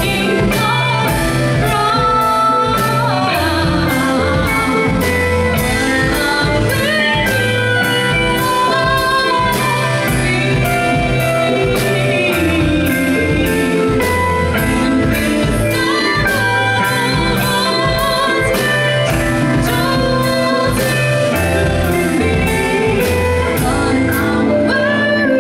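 A live band playing: a woman singing over electric guitar, bass guitar, keyboard and drums, with the drums keeping a steady beat.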